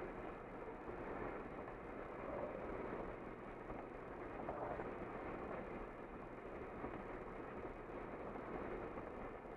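Steady road noise of a car driving at speed, tyres on the pavement and engine heard from inside the cabin, an even dull rush that does not change.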